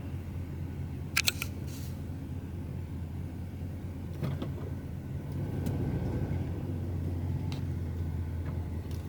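Steady low engine and road rumble inside a van's cab while driving, with a sharp click about a second in and a few fainter clicks later.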